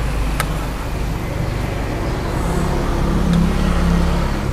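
Steady low rumble of a motor vehicle engine running nearby, with a humming pitch that grows stronger a little past halfway. A knife taps once on a wooden chopping board about half a second in.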